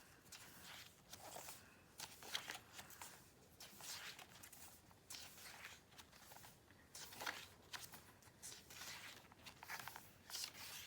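Faint, irregular rustling and small clicks of paper being handled: glossy photobook pages of a K-pop album being turned and touched.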